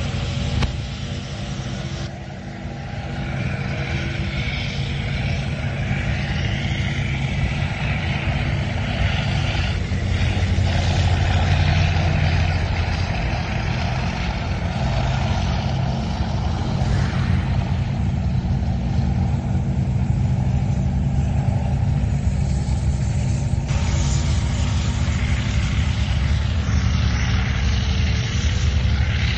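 Soviet-era main battle tanks' diesel engines running, a deep steady engine note with mechanical noise above it. The sound changes abruptly twice, about two seconds in and again some six seconds before the end.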